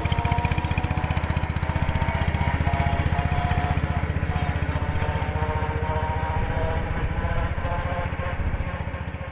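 1968 John Deere 140 garden tractor's single-cylinder Kohler engine running steadily with a fast, even beat as the tractor drives past. It grows fainter near the end.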